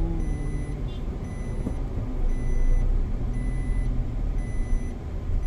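Steady engine and road rumble inside a moving car's cabin, with a high electronic beep repeating about once a second.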